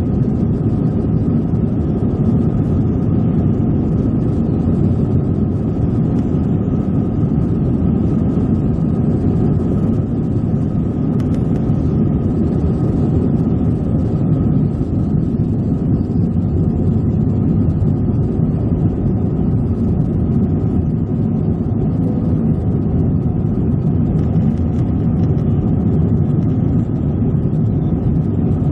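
Jet airliner engines running steadily: an even low rumble with a faint constant whine above it.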